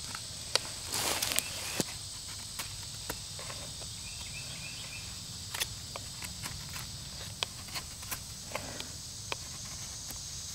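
Mora Scandi-grind carbon-steel knife shaving feather-stick curls off a dead standing tree: irregular short scrapes and sharp cracks of wood, with a couple of longer scraping strokes, over a steady insect buzz.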